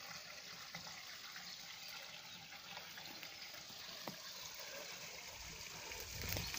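Spring water running steadily into a stone-walled pool, an even trickling splash, with a low rumble near the end.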